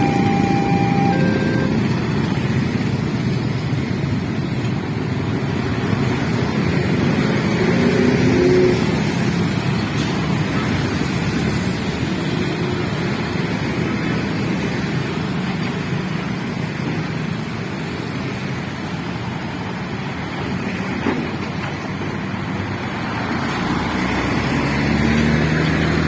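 Road traffic passing over a railway level crossing, a steady mix of vehicle engines and tyres. The level-crossing warning signal's alternating two-tone beeps stop about a second and a half in, and a vehicle engine hums close by near the end.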